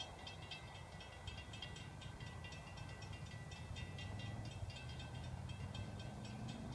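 Railroad grade-crossing bell ringing in quick, even strikes, about four or five a second, over a low rumble that grows louder in the second half.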